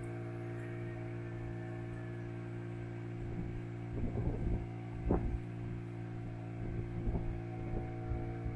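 Boat's outboard motor running at a steady speed, a constant low drone. From about halfway through, irregular knocks and thumps come over it, the sharpest just after the middle.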